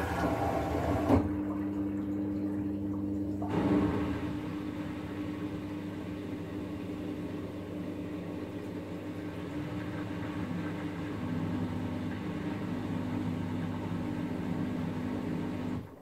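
LG front-loading washing machine's drain pump running, a steady low hum with rushing water as the prewash water is pumped out. The rush is strongest for about the first second and again from about three and a half seconds in. The sound starts and stops abruptly.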